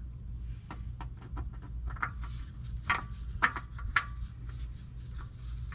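A gloved hand spins a new oil filter onto its mount by hand: a run of small scrapes and clicks, a few sharper ones about two to four seconds in, over a steady low hum.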